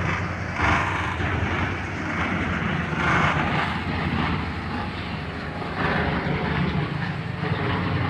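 Simran 676 self-propelled combine harvester running, the steady drone of its Ashok Leyland H6 diesel engine and machinery, with a hiss that swells briefly three times.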